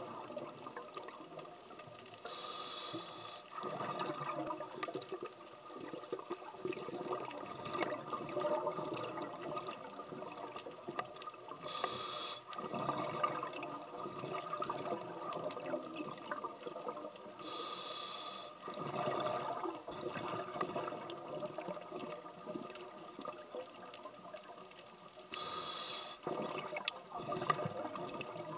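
Scuba regulator breathing, heard underwater: four breaths about seven to eight seconds apart. Each is a hiss of about a second as the diver draws on the regulator, then a bubbling rumble as the exhaled bubbles escape.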